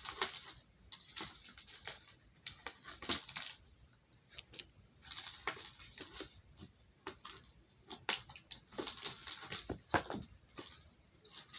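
Plastic packaging crinkling and rustling in irregular bursts, with scattered sharp clicks and taps, as small toys are unwrapped by hand.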